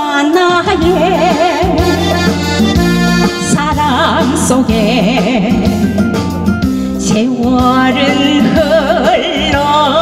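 Korean trot song: a woman sings with heavy vibrato into a microphone over a recorded backing track with bass and a steady beat.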